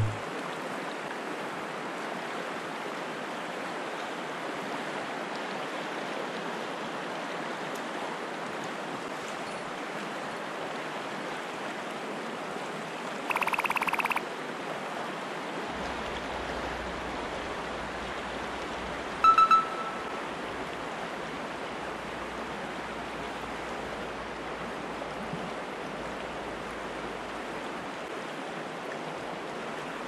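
Snowmelt-swollen mountain stream rushing steadily. A brief pulsing chirp comes about 13 seconds in, and a short, sharp high tone about 19 seconds in.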